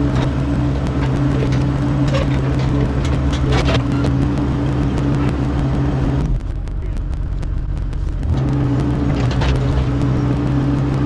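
Mini excavator's diesel engine running steadily, with scattered clanks and knocks from the machine working. The engine note drops away for about two seconds past the middle, then returns.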